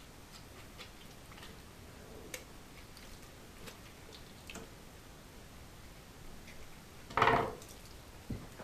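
Faint small clicks and handling noises from raw pike being skinned by hand on a wooden cutting board. About seven seconds in comes a short loud clatter, a knife being set down on the board, followed by a smaller knock.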